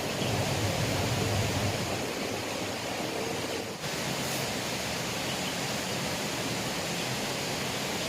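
Steady rush of flowing river water, an even hiss with a brief dip a little past the middle.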